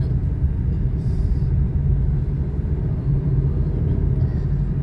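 Steady low rumble of a moving car's engine and tyres on the road.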